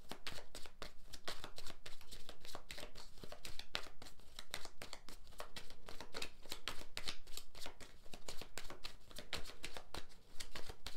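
A deck of tarot cards being shuffled by hand: a long, quick run of card flicks and clicks that dies away just before the end.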